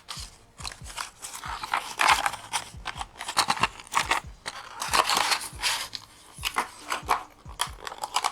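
Close handling noise as the WD M.2 2280 SSD is handled: irregular crackling and rustling with scattered small clicks.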